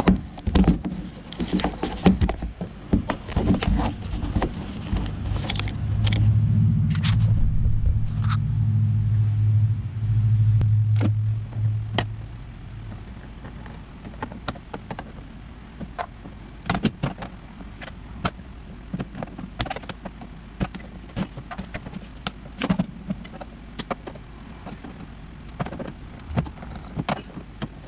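A low steady hum for about the first twelve seconds, loudest in its second half, then stopping. After it come scattered clicks and knocks of plastic push-pin trim fasteners being pried out of a side-by-side's interior panels.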